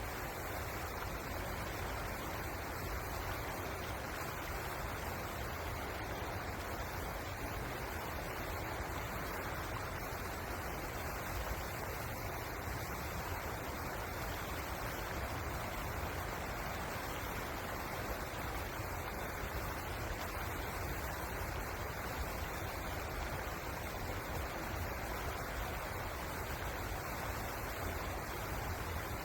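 Steady rush of flowing river water, an even noise with a low rumble underneath and no distinct events.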